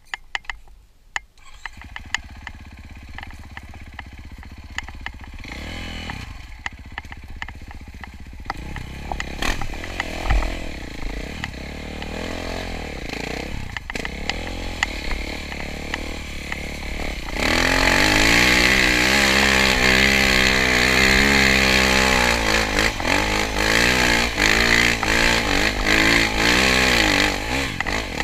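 KTM dirt bike engine running under the rider, its pitch rising and falling with the throttle, with clicks and clatter from stones on the trail. About two-thirds of the way in it gets much louder and stays loud as the throttle is held open up a loose coal-waste slope.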